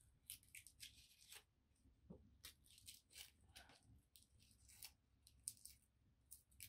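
Garlic cloves being peeled by hand with a small knife: the dry, papery skins crackle and tear in many faint, short, irregular crackles.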